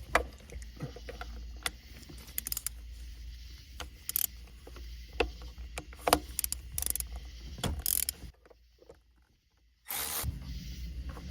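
Irregular metallic clicks and knocks of a ratchet and socket working on the 10mm bolts of a Honda S2000 shifter assembly. The clicks break off into near silence about eight seconds in, and a steady low hum follows.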